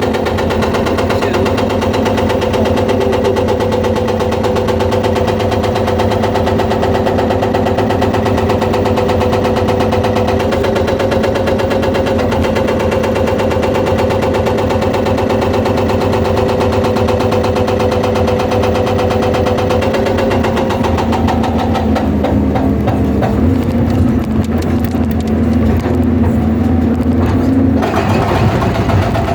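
Excavator's diesel engine running under load while its hydraulic breaker hammers rock in rapid, steady blows. For several seconds near the end the hammering thins out and the engine note steps down, then the full hammering returns.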